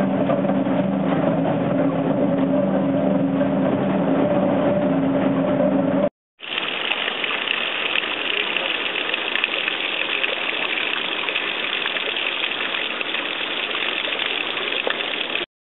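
A water-powered gristmill's gearing and shafts running steadily, with a steady low hum. After an abrupt cut, water pours off the top of a stone wall and splashes onto the rocks below, a steady hiss that stops suddenly near the end.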